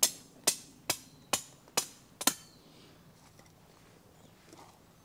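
Six hammer blows on a metal drive rod, about two a second, driving a duckbill earth anchor into a creek bank.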